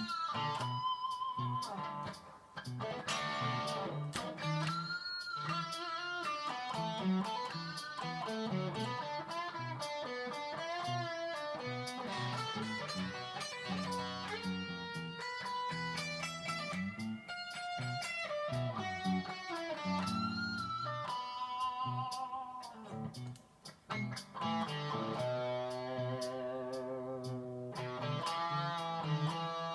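Electric guitar, a Squier '70s Telecaster Thinline with humbuckers played through a Fender Supersonic 60 amp, playing single-note lead lines with string bends. Near the end, held notes waver with a wide vibrato.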